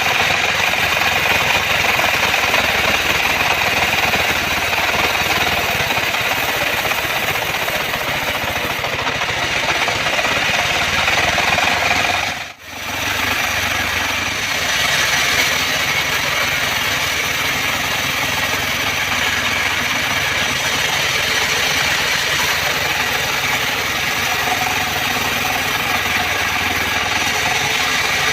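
Engine-driven homemade band sawmill running steadily as its blade saws through a trembesi (rain tree) log. The sound cuts out sharply for a moment about halfway through, then resumes.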